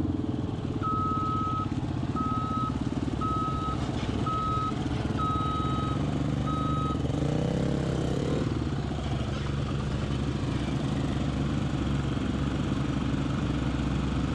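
Backup alarm on heavy logging equipment beeping six times, about one beep a second, stopping about seven seconds in. Steady engine rumble underneath, with a short rise and fall in engine pitch just after the beeping stops.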